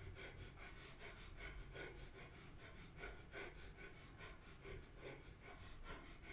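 Breath of fire: rapid, even nasal breathing, faint, with short forceful exhales pumped from the navel.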